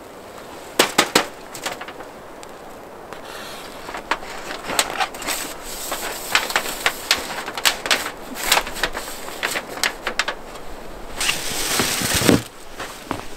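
Irregular sharp clicks, knocks and crunches from a long wooden pole being handled against a canvas tent, with footsteps in snow. A denser stretch of scraping and crunching comes about eleven seconds in.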